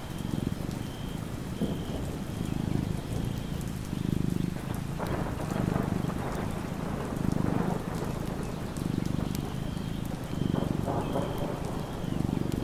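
Rain and thunder of a storm. A low rumble swells and fades steadily about every second and a half, with faint short high chirps now and then.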